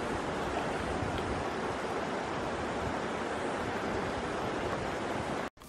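River water running over a shallow stony riffle: a steady rush of noise that cuts off suddenly near the end.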